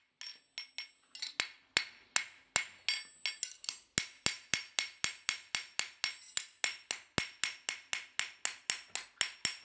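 Farrier's hammer striking a racing horseshoe on an anvil: quick, regular blows, about three a second, each with a short metallic ring, as the shoe is shaped.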